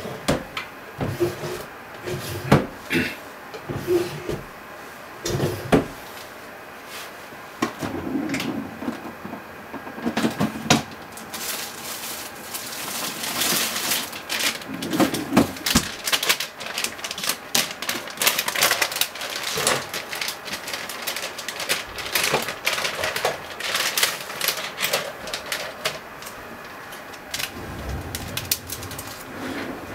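Irregular clicks, taps and light rattles of things being handled in a kitchen, coming thick in stretches through the middle.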